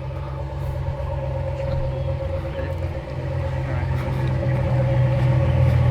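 Truck engine running with a steady low rumble that grows gradually louder.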